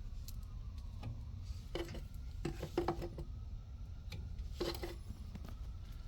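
Light metallic clinks and knocks from gas pipe fittings and tools being handled, in two clusters about two seconds and four and a half seconds in, each with a brief ring, over a steady low hum.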